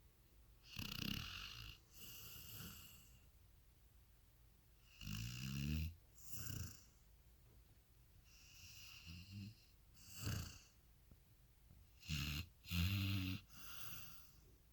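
Snoring: slow breaths in pairs, repeating about every four seconds, several of them with a low buzzing rattle.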